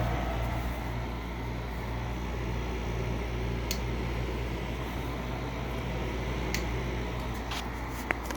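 GE 5,100 BTU window air conditioner (Haier-made) running with its compressor and fan on. A steady low hum sits under an even rush of air, with a few short faint ticks in the second half.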